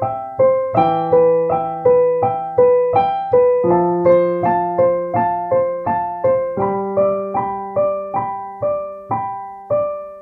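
Alesis Recital Pro digital piano played: an even run of single notes, about three a second, over held bass notes that change every three seconds or so.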